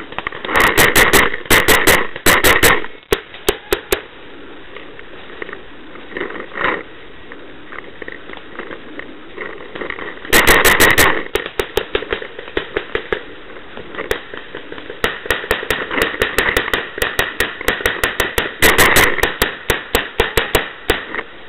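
Paintball markers firing in rapid strings of sharp pops: dense volleys early on and again about ten seconds in, then a long run of separate shots, several a second, through the last six seconds.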